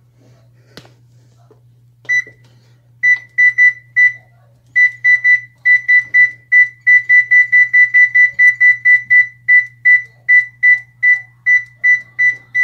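Oven control panel on an electric range beeping with each button press: short, identical high beeps, a few spaced ones about two seconds in, then a quick regular run of two or three a second. A faint steady hum lies underneath.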